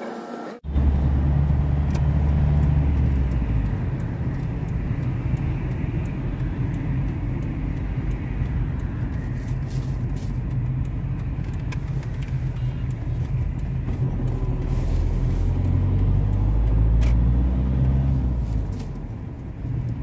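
Car interior noise while driving: a steady low rumble of engine and road, heard from inside the cabin. It follows a brief dropout in the sound under a second in.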